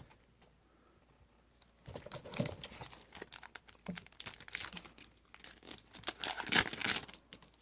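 A trading card pack wrapper being torn open and crinkled: a dense crackle that starts about two seconds in and runs for about five seconds, loudest near the end.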